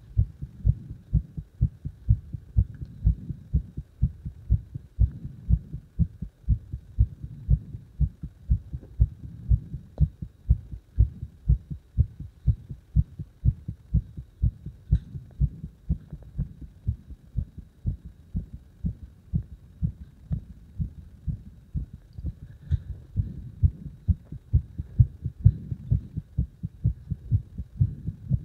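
A heart beating strongly: an even lub-dub rhythm of low thumps that repeats steadily throughout.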